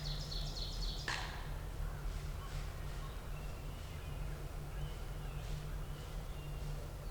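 Wild birds calling in the woods: a rapid high trill at the start, a sharp call sweeping downward about a second in, then a few fainter calls, over a steady low rumble.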